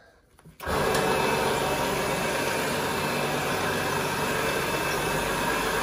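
Counter-rotating brush (CRB) carpet machine switching on about half a second in and then running steadily, its motor and twin brushes scrubbing the pre-sprayed carpet fibres.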